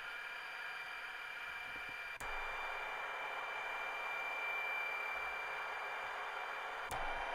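Recorded Class 57 diesel locomotive engine sound from a DCC sound decoder, played through small model-railway speakers: a steady thin rumble with a clear whine and little bass. A click about two seconds in and another near the end, each followed by a slightly louder, changed tone, as playback switches to a different speaker.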